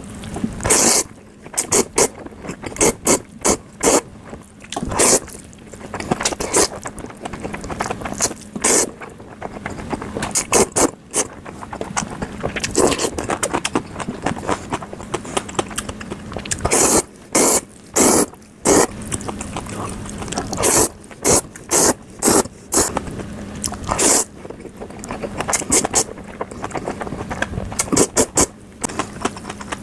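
Close-miked eating of bibim-myeon (cold spicy mixed noodles): many short, loud wet noodle slurps at irregular intervals, between softer chewing and wet sounds, over a faint steady hum.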